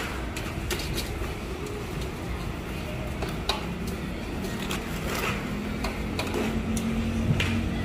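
Busy market food-stall din: indistinct background chatter, a steady low rumble and scattered clinks and clatters of dishes and utensils. Music comes in near the end.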